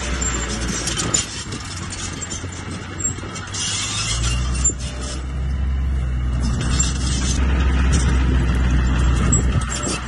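Small crawler bulldozer's diesel engine running steadily, getting louder about four seconds in as the dozer pushes dirt, with a few short clanks.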